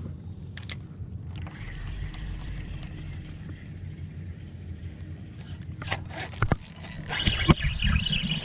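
Low steady hum of a small skiff's electric trolling motor, with a few sharp clicks and, in the last second or so, a busier run of knocks and clatter.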